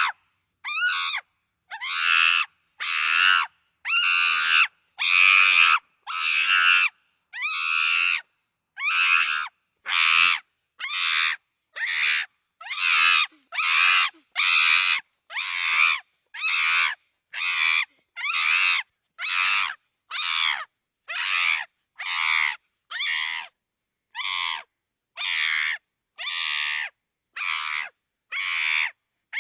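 Chimpanzee screaming: a long series of short, shrill screams, about one a second, each separated by a gap of dead silence.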